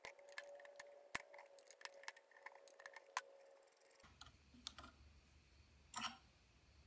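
Faint, irregular metal clicks and scrapes as a small screwdriver tip and fingers work a loosened retaining ring out of the end of an Atlas 73 drill press quill. The clicks come thick for the first three seconds or so, with a few more and a soft rustle later on.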